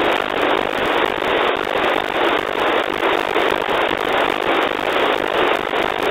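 FM-demodulated static from an RTL-SDR receiver tuned to NOAA 15's 137.62 MHz weather-satellite downlink: a steady, loud rushing hiss with slight swells. The satellite's signal is weak and mostly buried in the noise.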